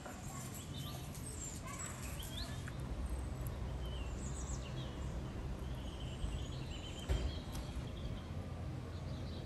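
Small birds chirping on and off over a steady low background hum, with a single soft knock about seven seconds in.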